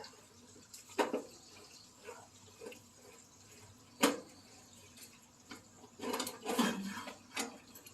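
Intermittent clicks and clunks of metal furnace parts and tools being handled as the inducer motor is worked loose: a sharp click about a second in, a louder one about four seconds in, and a short run of rattling near the end.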